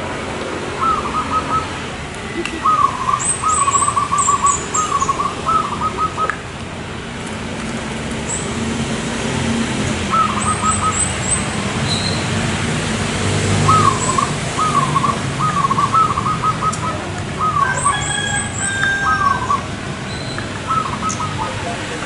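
Zebra dove (perkutut) cooing in about six phrases of quick short notes, with pauses between them. A few short runs of high chirps from another small bird come in over it.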